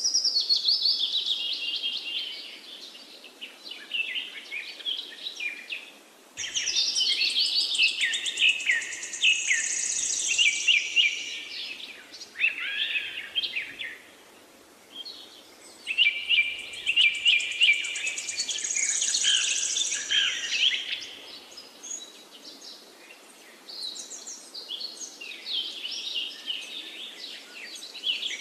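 Many songbirds chirping and twittering together in quick, high calls, a birdsong ambience track. The chirping jumps abruptly louder about six seconds in and again near sixteen seconds, with quieter spells between.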